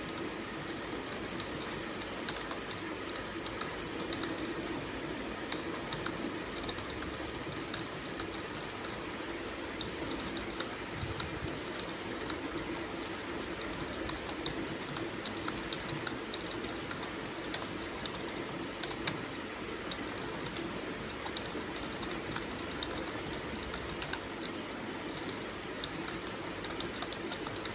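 Fast typing on a computer keyboard: a quick, continuous stream of key clicks over a steady background noise.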